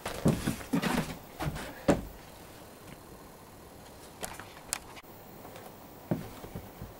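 Handling noise: a quick run of light knocks and clatter in the first two seconds as a wooden beehive frame and the camera are moved, then a few faint clicks and a soft thump near the end.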